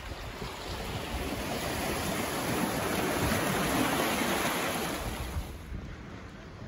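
Small waves washing in over a rocky shore, the surf swelling to a peak around four seconds in and then easing off.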